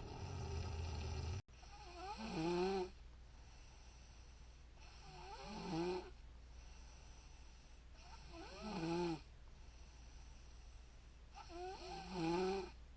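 A woman snoring in her sleep: four separate snores about three seconds apart, each a pitched rattle that bends up and then falls. Before the first snore, a loud low rumble cuts off abruptly about a second and a half in.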